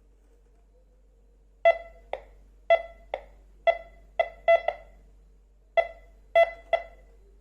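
MD-4030 metal detector beeping in short, unevenly spaced pulses, about a dozen over five seconds, as a metal target is passed near its search coil during a detection-range test.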